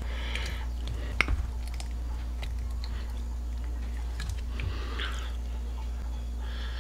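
Knife working through ballistic gelatin and fingers pulling a fired bullet free: soft, wet squishing with small scattered clicks, and one sharper click about a second in. A steady low hum runs underneath.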